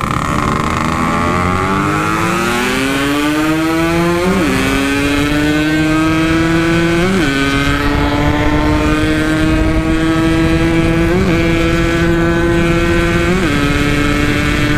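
Yamaha RX-King's 135cc single-cylinder two-stroke engine, with a Packing Power standard-pattern exhaust, accelerating hard under load: the pitch climbs steadily and falls sharply at each of four upshifts, about 4, 7, 11 and 13 seconds in.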